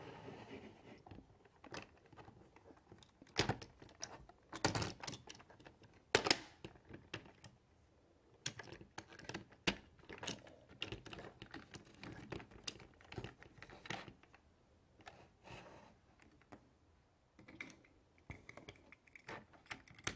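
Plastic toy car hauler being handled: irregular clicks, taps and light scrapes of its plastic trailer parts as the side is opened and the ramp set down, with a few sharper knocks in the first half.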